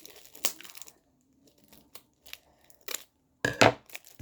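Gift packaging being torn and crinkled open by hand: short scattered bursts of tearing and rustling, the loudest one near the end.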